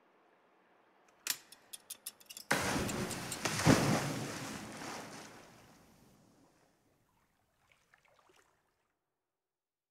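A quick run of sharp clicks, then a big splash as two giraffes drop into a diving pool, the water churning and fading away over a few seconds.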